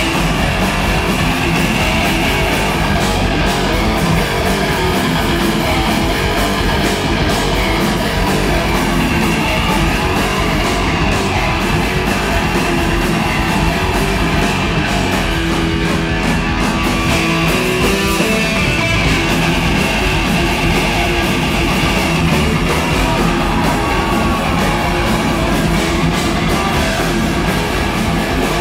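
Live rock band playing loud, guitar-driven music without a break.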